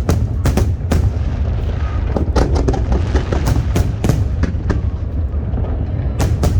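Aerial fireworks shells bursting in a rapid, irregular string of sharp bangs, at times several a second, over a continuous low rumble.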